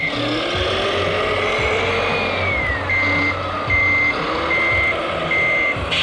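Radio-controlled dump truck's sound module reversing: an electronic reversing beeper sounds four even beeps in the second half, over a simulated diesel engine note that rises and falls in pitch with the throttle.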